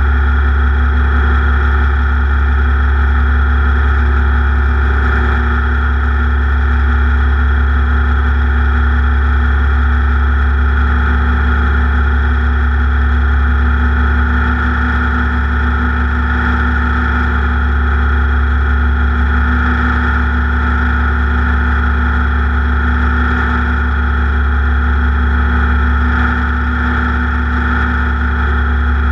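Racing engine running at a steady, unchanging high speed, a loud constant drone with no revving up or down.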